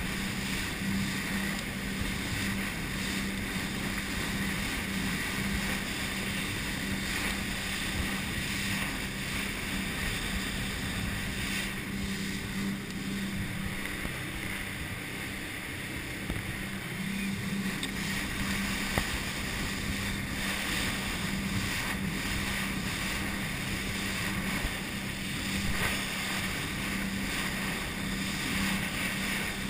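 Cabin motorboat running at speed: a steady engine drone under the rush of wind and of water spraying along the hull.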